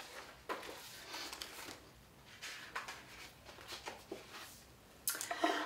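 Soft, intermittent rustling and handling noises of a hardback picture book being picked up and held open, a little louder near the end.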